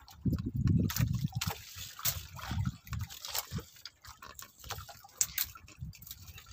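Water sloshing and splashing, louder in the first second, then lighter uneven splashes with scattered drips and sharp little knocks.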